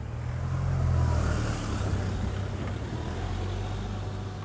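A Jaguar F-Pace SUV drives up and slows at the crossing with its engine running and its tyres hissing on the road. The sound is loudest about a second in and fades gradually as the car settles.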